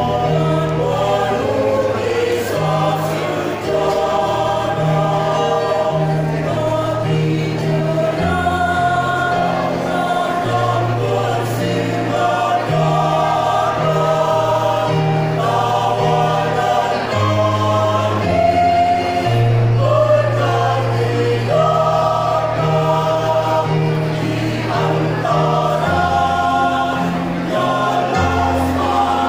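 Choir singing a song in harmony over an instrumental accompaniment with a steady, regularly changing bass line.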